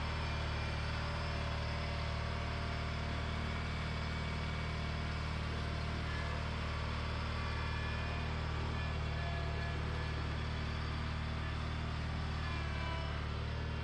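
John Deere 420 garden tractor's air-cooled Onan twin-cylinder engine running steadily as the tractor creeps forward. A steady low hum with no change in speed.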